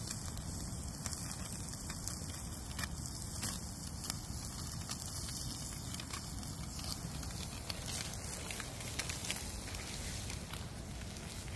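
Campfire crackling steadily, with irregular sharp pops and snaps.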